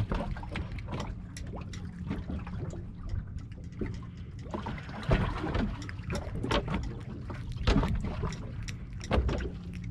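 Water lapping and slapping against the hull of a drifting boat in irregular small splashes, over a steady low hum.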